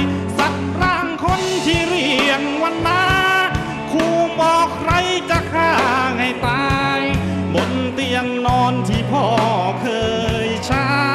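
Live rock band playing a song: electric guitars, bass and drums with a male lead vocal.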